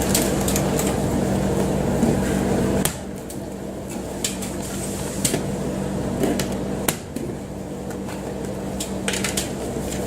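A steady machine hum that cuts off about three seconds in, with scattered clicks and knocks of handling throughout.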